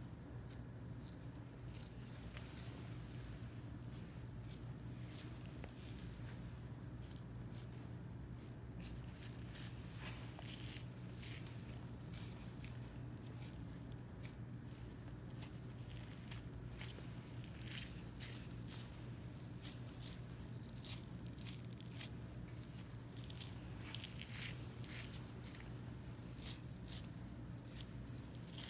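Boning knife cutting through the fat cap of a Kuroge Wagyu outer plate (kappa) while a gloved hand peels the fat away: a run of short, crisp cutting and tearing sounds, thicker from about a third of the way in, over a steady low hum.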